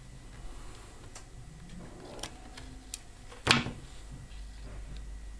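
Hands working a power cable with small flush cutters: a few light clicks, then one sharp snap about three and a half seconds in, the loudest sound.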